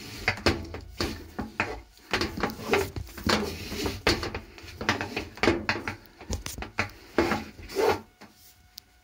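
Irregular rubbing, scraping and light knocks of a flexible water hose being fed through a hole in a wooden kitchen cabinet. The handling dies away in the last second.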